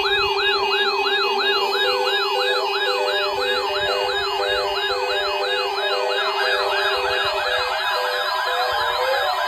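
Electronic siren alarms of weather alert radios set off by the weekly test broadcast, sounding together: a rapid rising-and-falling wail about two and a half times a second, with a steady low tone and a short repeating beep. A second wail joins about six seconds in, and the low tone stops about seven seconds in.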